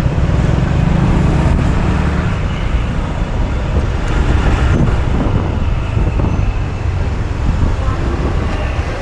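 Steady road traffic and engine noise heard while moving through busy city traffic, with a loud low rumble underneath.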